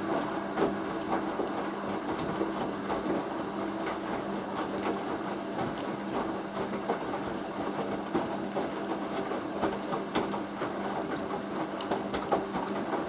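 Hoover A3060 washing machine tumbling its drum in the final rinse: a steady motor hum under a scatter of clicks and knocks from the turning load.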